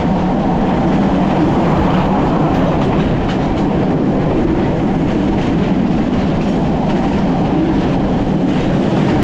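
Passenger train running at speed, heard from an open carriage doorway: a loud, steady rumble of wheels on rails with occasional clacks over the rail joints.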